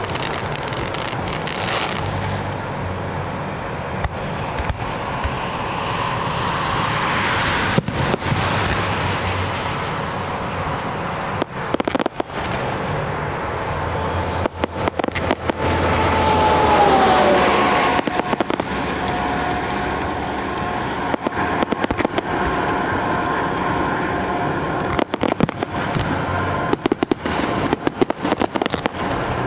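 A fireworks display going off: shell bursts and crackling over a steady rumble. A falling whistle comes about halfway through, and the crackling grows dense near the end.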